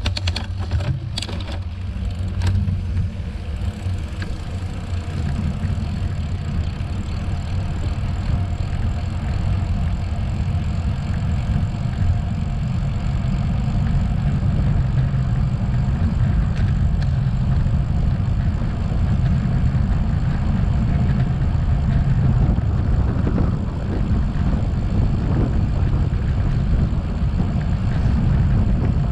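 Strong wind buffeting the microphone: a loud, steady low rumble that sounds like a car engine. A few sharp clicks in the first few seconds.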